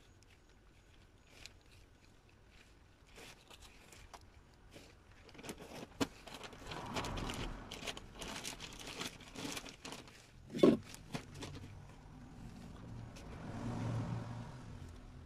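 A plastic bag of potting soil rustling and a hand trowel scraping as soil is scooped out and into a pot, with a single sharp knock about two-thirds of the way through.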